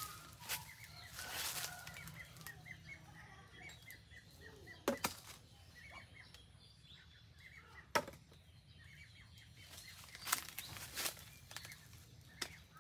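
Water apple branches rustling with sharp snaps as fruit is pulled off by hand, about half a dozen times, with faint short bird chirps repeating in the background.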